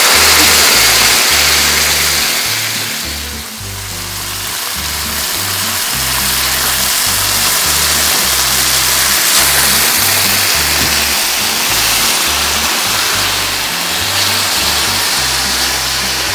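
Liquid sauce sizzling loudly as it is poured onto fried tofu in a hot pan, then bubbling on as it is stirred. The sizzle is loudest in the first couple of seconds, dips briefly a few seconds in, then holds steady. Background music with a low bass line plays underneath.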